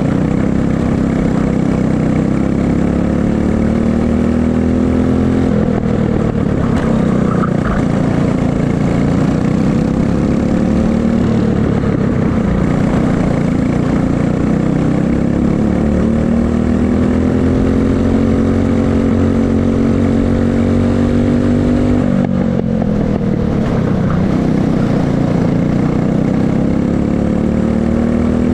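Racing kart engine heard onboard at full racing pace, its pitch climbing steadily along the straights and dropping sharply three times as the throttle comes off into corners.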